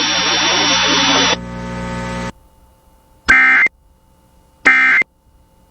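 Emergency Alert System end-of-message data bursts: two short, shrill buzzing bursts of data tone, about 1.3 seconds apart. Before them, about two seconds of radio hiss and hum that cuts off suddenly.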